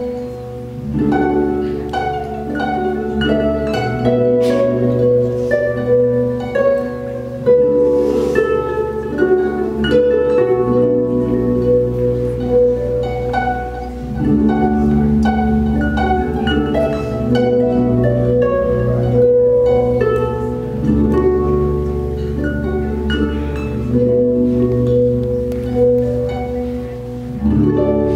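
Lyon and Healy Concert Grand pedal harp played through effects: a stream of plucked notes ringing over sustained low tones.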